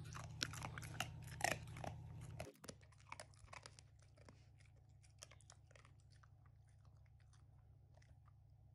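A black Shiba Inu chewing a treat: crisp crunches and wet mouth clicks, louder for the first two and a half seconds, then softer, scattered chewing clicks.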